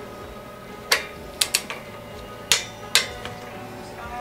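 Five sharp, irregularly spaced metallic clicks of a wrench and hex socket working on the head studs of an air-cooled Porsche 911 flat-six as they are torqued, over faint background music.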